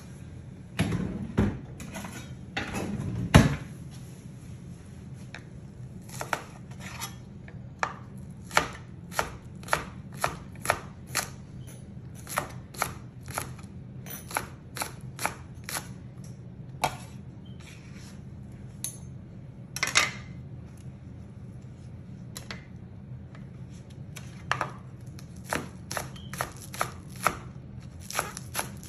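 A kitchen knife chopping green onions on a plastic cutting board: sharp separate knife strokes, irregular at about one or two a second. A few louder knocks come in the first few seconds.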